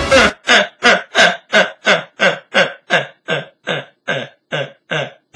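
A voice repeating short, gruff vocal sounds about three times a second, each one dropping in pitch, the string growing gradually fainter.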